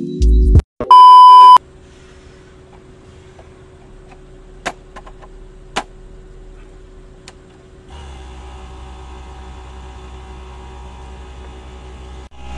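A short, very loud beep tone about a second in, then a few light clicks; about eight seconds in, a Bauer cordless air compressor starts and runs steadily, overly quiet for a compressor.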